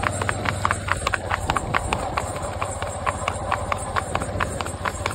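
Horse's hooves clip-clopping on an asphalt road in the revaal gait, a smooth, even ambling gait, with about four to five regular hoofbeats a second.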